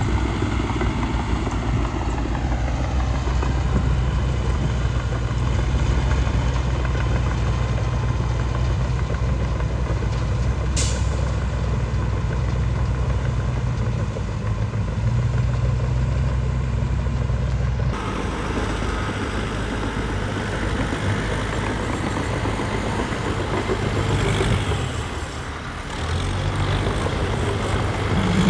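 Diesel engine of heavy earthmoving machinery running steadily, with a short hiss about a third of the way through. The sound changes abruptly about two-thirds of the way in and runs on in a different mix.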